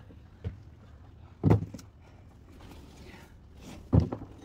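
A light knock, then two heavy thumps about two and a half seconds apart, the second near the end.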